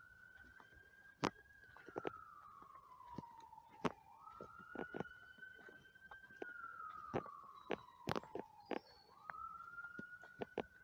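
An emergency-vehicle siren in a slow wail, rising, holding, then gliding down again about every four to five seconds. Over it come irregular sharp crunches of footsteps in snow.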